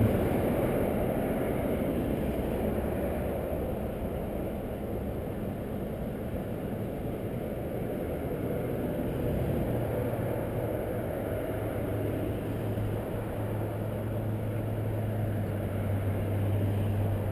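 Street traffic rumbling past with a car engine idling close by; a steady low engine hum comes in about halfway through and holds.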